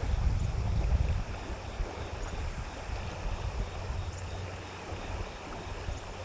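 River water flowing, a steady rushing hiss, with wind buffeting the microphone in a low rumble for about the first second.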